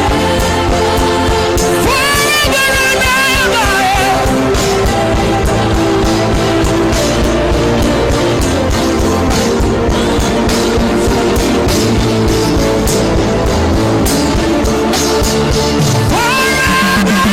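Continuous worship music with a steady beat under sustained chords. A voice sings a held, wavering line about two seconds in and comes in again near the end.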